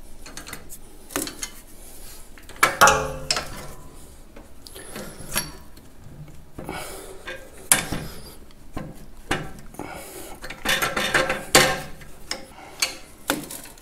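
Hand tools and steel parts clinking and clanking on the lever linkage of a Farmall 504's hydraulic spool valves as the control levers are disconnected: scattered metallic clicks and knocks, a few with a short ring around three seconds in and again near the end.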